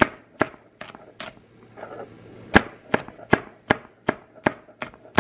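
Chef's knife chopping celery stalks on a granite countertop: sharp knocks of the blade on the stone, about two to three a second. There is a pause of about a second after the first four strokes.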